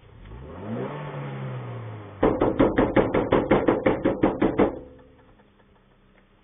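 A vehicle engine is revved with the vehicle standing still, its pitch rising and then holding. About two seconds in, the horn is hooted in a rapid string of about a dozen short beeps, about five a second, for some two and a half seconds.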